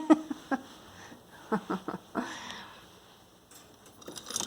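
Five-week-old Chihuahua puppies making a few short squeaks and snuffles.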